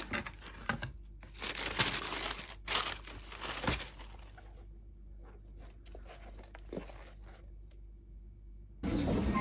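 Cardboard shoebox being opened and tissue paper crinkling as a sneaker is lifted out: two bursts of rustling, then lighter handling sounds.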